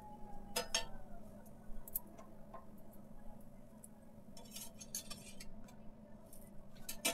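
Perforated steel spatula clinking and scraping against an iron tawa in scattered clicks as a kulcha is pressed and turned over, with a run of scrapes about halfway through and a sharper clink near the end.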